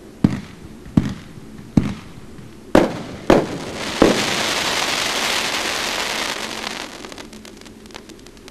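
Finale of a 500-gram firework cake (Big N Bold): six sharp bangs as the shells launch and break, then the crackling willow stars fill in with a dense crackle of about three seconds, thinning to scattered pops near the end.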